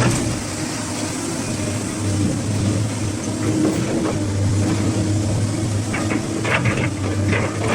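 SANY SY215C excavator's diesel engine running steadily at idle, a constant low hum. A few short clicks or knocks come near the end.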